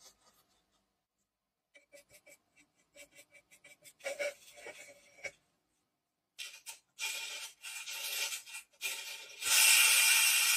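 A metal tool scraping and scratching on the tin-plate hull of a 1951 Sutcliffe toy submarine, working off old solder and corrosion. Scattered light ticks and scratches lead into a short scrape, then after a brief pause comes a steady rasping scrape that is loudest near the end.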